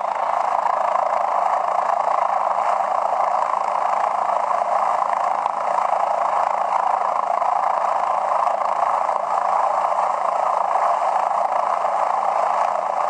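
An engine running steadily: an even, unchanging noise.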